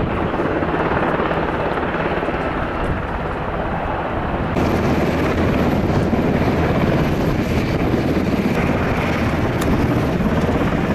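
Piston engine of a single-engine propeller plane running steadily on the airport ramp. About four and a half seconds in, the sound jumps abruptly louder and brighter.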